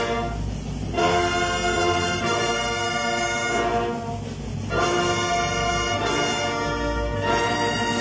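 Wind band of clarinets, saxophones and brass playing a slow funeral march, in phrases of held chords that re-enter about a second in, near five seconds and after seven seconds.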